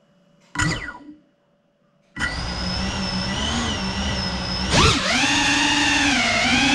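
GEPRC Cinelog 35 cinewhoop's brushless motors and ducted propellers: a short whine falling in pitch about half a second in, then from about two seconds a steady idle whine. Near five seconds the pitch jumps up sharply as throttle rises for takeoff, and the whine stays loud and wavering in pitch.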